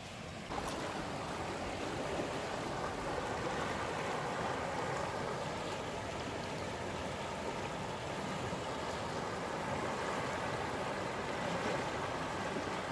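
Shallow river running over rocks in small riffles: a steady rush of water, louder from about half a second in.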